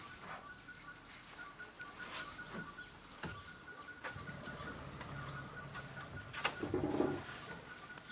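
Tropical forest ambience: insects keep up a steady pulsing trill and a high hiss, while many short falling bird chirps sound throughout, with a few sharp clicks. A low hum comes in about halfway through.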